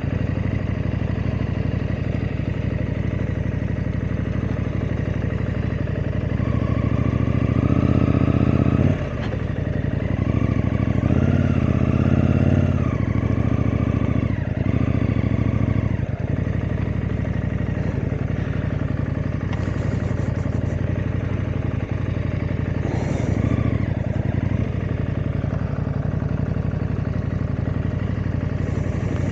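KTM 890 Adventure R's parallel-twin engine pulling the bike along. The engine note rises and falls with the throttle and gear changes, with short dips about a third of the way in and again around halfway, then settles into a steady cruise.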